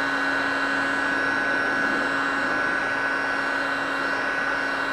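Heat gun running steadily, its fan blowing hot air over sun-faded plastic trim to bring its dark finish back: a steady high whine and a low hum over the rush of air.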